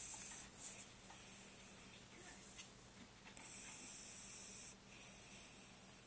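A sleeping pet snoring: hissing, rhythmic breaths, with one loud drawn-out breath of a little over a second just past the middle and softer breaths between.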